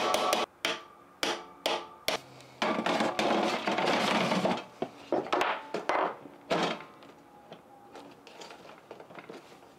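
Sharp clicks and knocks of a hard replacement part being worked into an appliance's mechanism, with a couple of seconds of scraping in the middle, as excess super-glued material is worked until the part seats.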